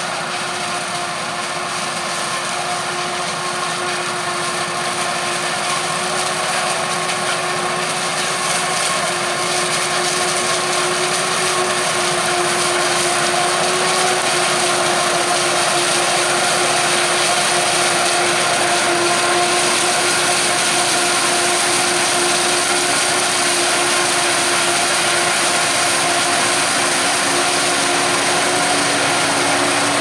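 Krone BiG X 700 forage harvester chopping maize, with a Valtra tractor and trailer running alongside. Steady engine and machinery noise with a constant hum, growing slowly louder as the machines come closer.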